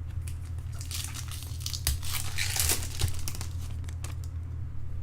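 Foil trading-card pack wrapper crinkling and tearing in the hands, densest in the middle, with a few sharp crackles, over a steady low hum.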